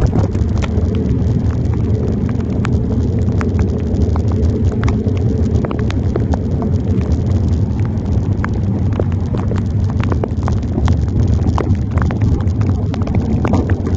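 Steady low rumble of wind and wet-road noise on a handlebar-mounted phone's microphone while cycling in heavy rain, with many sharp irregular ticks of raindrops striking the phone.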